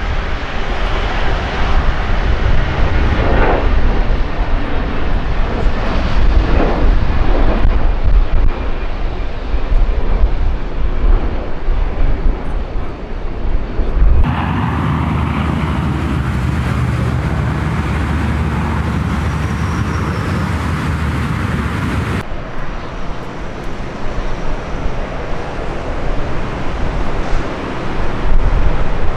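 Jet engines of an Iberia Airbus A320-family airliner running at takeoff power as it lifts off and climbs out, a continuous roar. The roar changes abruptly about halfway through to a steadier, brighter tone, then changes back again near the last quarter.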